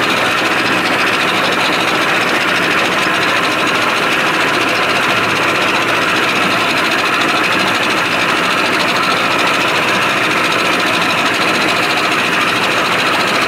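1987 Johnson 70 hp two-stroke outboard motor idling steadily, freshly cold-started without the starter lever.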